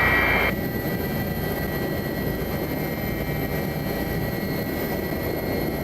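Helicopter in flight heard from inside the cockpit: a steady engine and rotor rumble with hiss. The higher part of the noise drops away about half a second in.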